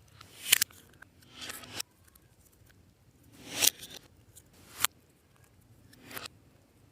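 Clear slime being worked by hand: about five wet, crackling squishes that each swell and end in a sharp pop of trapped air.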